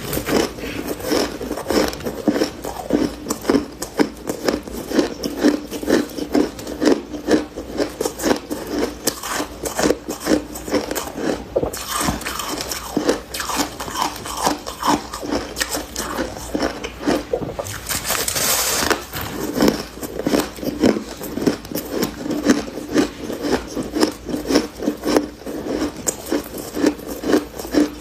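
Close-up chewing of soft freezer frost: a steady run of crunches, a few every second, with a short hiss about two-thirds of the way through.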